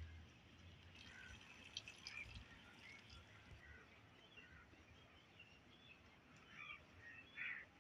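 Faint outdoor ambience with scattered short bird chirps, a few calls bunched together and a little louder near the end.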